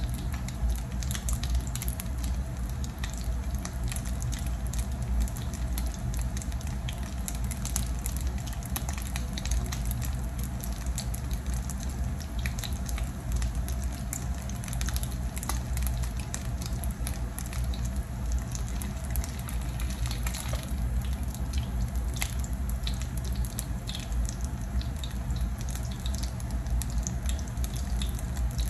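Oil sizzling and crackling steadily around a ground-beef omelette patty frying in a shallow pan, with many small pops, over a low steady hum.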